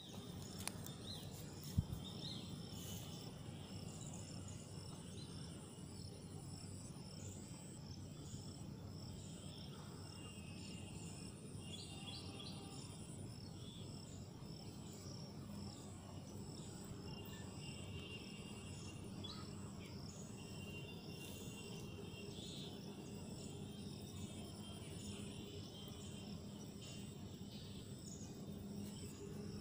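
Steady high-pitched insect chirping over a low outdoor hum, with one sharp click about two seconds in.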